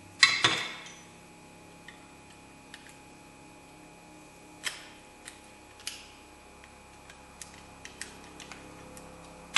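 Screwdriver working a retaining clip off a drum-brake shoe. A sharp metallic clank with a brief ring comes just after the start, then scattered light metal clicks and taps.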